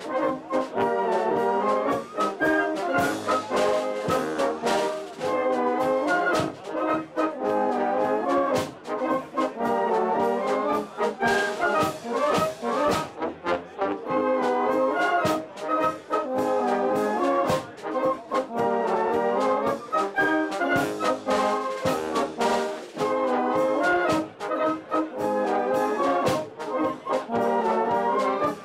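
Wind band of brass and woodwinds playing a tune with a steady beat: trumpets, trombones, tubas, saxophones, clarinets and flutes together.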